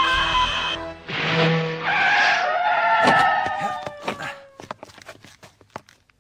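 Soundtrack music that cuts off just under a second in. It is followed by a rushing sound effect with long falling whines, then a series of sharp cracks that grow fainter toward the end.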